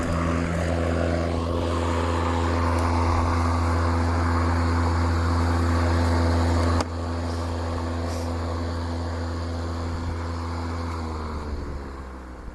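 WORX cordless electric lawnmower's motor and blade running with a steady hum. About seven seconds in, the level drops suddenly. Near the end the pitch falls as the mower spins down, its battery going flat.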